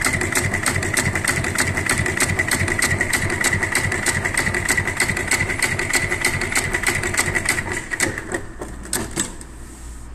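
Richpeace RP204-292Z industrial sewing machine stitching a decorative cross stitch through leather: the needle strokes tick rapidly and evenly over a steady motor whine. It stops about eight seconds in, followed by a few single clicks.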